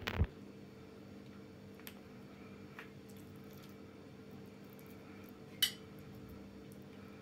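Quiet kitchen handling as rice filling is spooned onto grape leaves: a knock at the start, then a few faint clicks of a metal spoon on dishware, the sharpest about five and a half seconds in, over a steady low hum.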